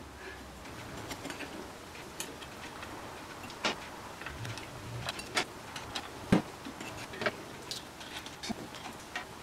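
Light, irregular clicks and clinks of oil-soaked clutch friction and steel plates being slid one after another into the clutch basket of a 1999 Kawasaki ZX7-R, with one sharper click about six seconds in.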